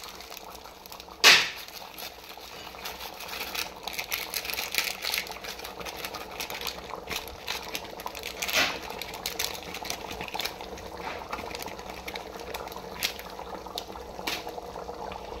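Chicken korma simmering in ghee in a pot, bubbling and crackling steadily, with one sharp tap about a second in and a softer one midway.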